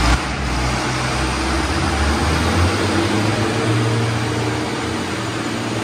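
Diesel engines of a John Deere 4955 and a Fendt 936 tractor working hard under load as the two pull against each other on a strap. A loud, steady engine note whose lowest tone changes about two seconds in.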